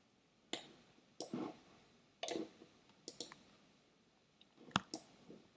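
Scattered clicks of a computer mouse and keyboard, in short irregular groups with quiet between them.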